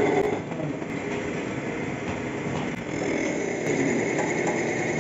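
Small benchtop CNC lathe (TU150) running a turning program: its spindle turns steadily while the cutting tool works the workpiece, with a steady whine over a low hum.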